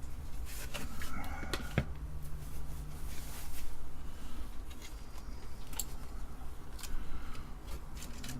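Bench handling sounds: painter's tape being pulled and torn, and a circuit board being handled and set down, giving scattered light clicks and taps. There is a longer rasping stretch about three seconds in, over a faint steady low hum.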